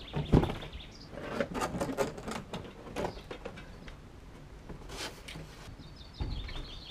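Cardboard shipping box being handled: flaps rustling, knocks and a scrape of cardboard, and bumps as a carbon bicycle wheel is lifted out, the loudest knock right at the start. A small bird twitters briefly at the start and again near the end.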